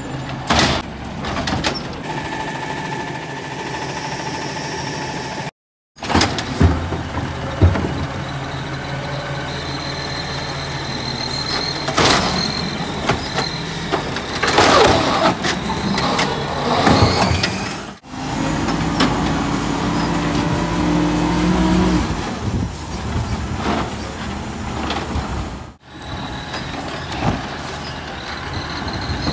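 Natural-gas automated side-loader garbage truck at work: engine running, hydraulic arm whining as it lifts and tips wheelie bins, with clattering and thuds as the bins empty into the hopper. The sound changes abruptly several times, with a brief silence about five seconds in.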